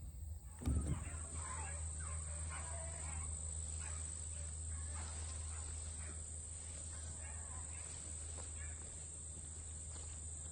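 Young rabbit dogs baying on a trail: a string of short, repeated cries with a steady high insect-like drone behind them. There is a single knock about a second in.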